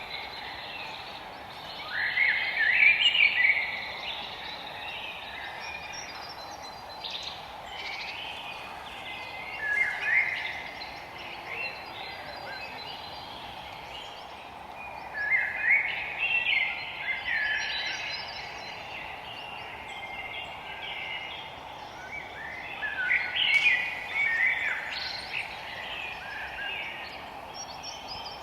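Forest songbirds singing: four bursts of quick chirping phrases, one about every seven or eight seconds, over a steady background hiss.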